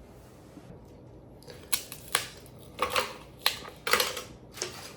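Kitchen things being handled: a string of about six sharp clicks and light clatters, starting about a second and a half in.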